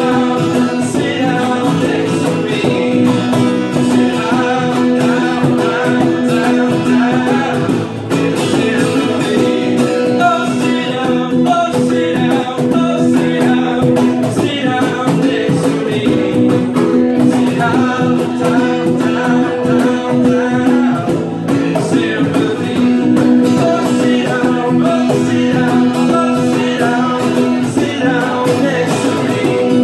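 Live acoustic band: several acoustic guitars strumming steady chords under a man's singing voice.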